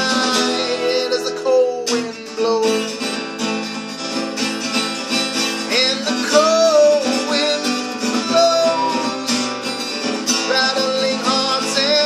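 Acoustic guitar strummed steadily under a man singing a slow folk tune, with long held, wavering notes.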